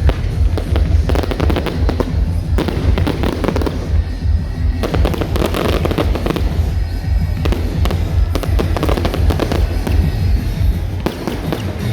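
Fireworks display: a dense run of rapid crackling bangs and bursts over loud music with a heavy bass.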